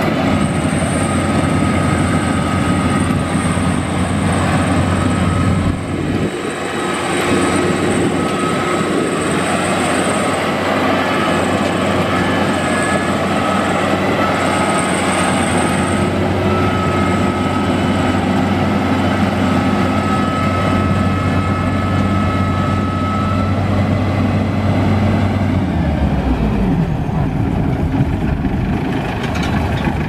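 FMWorld Bimo X rice combine harvester running, its engine and harvesting machinery making a steady loud drone with a high whine over it. Near the end the engine note falls as it throttles down toward idle.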